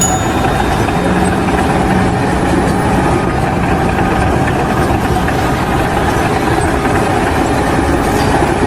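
A large engine running steadily at an even pace, with a dense, unchanging mechanical noise.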